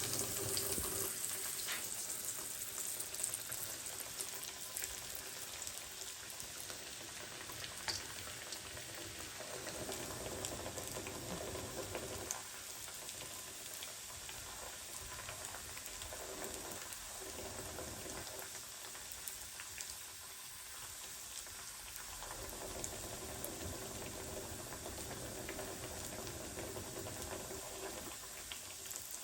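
Food frying in hot oil: a steady sizzle full of fine crackles, a little louder in the first few seconds.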